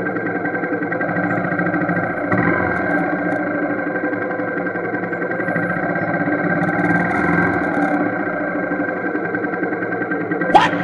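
Motorcycle engine running at a steady speed, picked up by a helmet-mounted action camera. Near the end there is a short, sharp sound with a quick rise in pitch.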